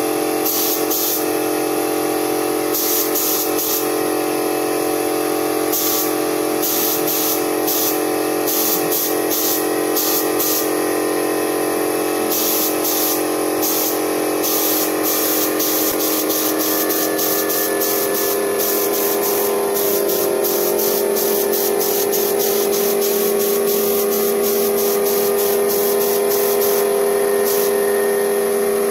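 Paint spray gun hissing in short bursts, the trigger pulled on and off many times while paint is sprayed. A steady hum runs underneath.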